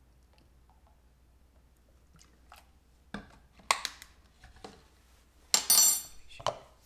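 Metal measuring teaspoon clinking and tapping against a mixing bowl as vanilla is tipped into custard: quiet at first, then a handful of separate clinks from about three seconds in, the loudest a brief ringing clatter near the end.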